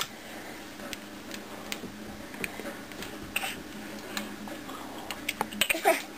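Irregular sharp clicks, roughly one or two a second, made to amuse a baby, with a short falling baby vocal sound among a burst of louder clicks near the end.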